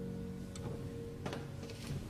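Quiet music, held tones fading out, with a few sharp clicks: one about half a second in and a cluster in the second half.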